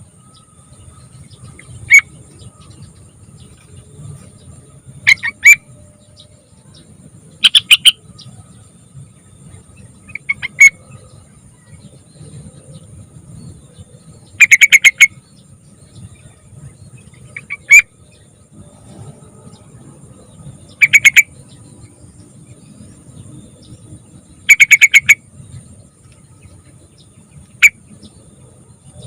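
Sooty-headed bulbul (trucukan) calling in short, bright, bubbly phrases, each under a second, about ten of them spaced a few seconds apart. A faint steady high whine runs underneath.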